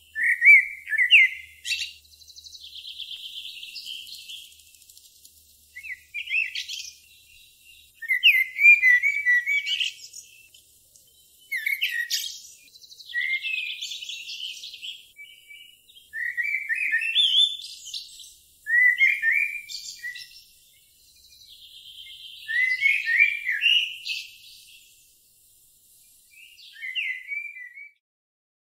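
Songbird singing: bursts of high chirps and trills every couple of seconds, with short pauses between phrases.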